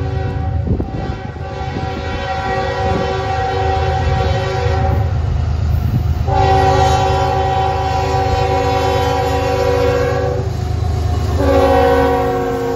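Freight diesel locomotive horn sounding a chord in long blasts: one ends about five seconds in, a second lasts about four seconds, and a third begins near the end. A low engine rumble runs underneath and grows loudest as the lead locomotives pass.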